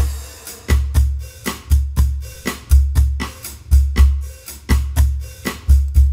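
Sampled cajon drum kit in the BeatBuddy drum machine software playing a bossa nova beat at 120 BPM: a syncopated pattern of deep bass thumps with sharper slaps between them.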